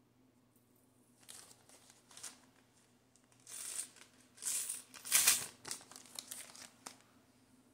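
Crinkly packaging being handled: irregular bursts of crinkling and rustling that start about a second in, the loudest around the middle, then trail off into smaller rustles.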